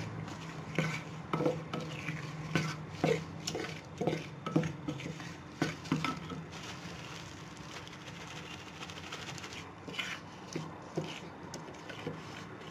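White silicone spatula stirring liquid laundry detergent, paint and styrofoam beads in a glass baking dish, in short strokes about twice a second, easing off for a few seconds past the middle before picking up again.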